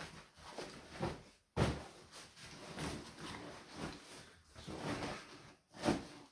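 Handling noise from a large fabric rucksack being moved and closed up: rustling of the material with several sharp knocks and thuds, the strongest about a second and a half in and again near the end.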